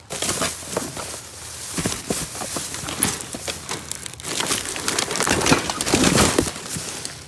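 Rummaging through a pile of discarded junk: irregular crinkling, rustling and clattering as pieces are shifted and pushed aside, busiest about five to six seconds in.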